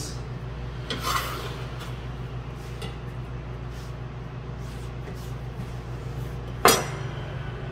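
A steady low hum in the background, a soft rustle about a second in, and one sharp knock on the cutting board near the end.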